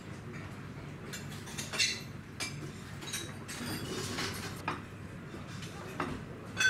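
Scattered clinks and taps of dishes, glasses and cutlery over a low, steady room background, ending in a louder, ringing clink.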